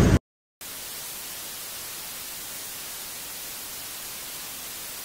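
Steady TV-static hiss, a white-noise sound effect, beginning after a split-second of silence that cuts off street traffic noise.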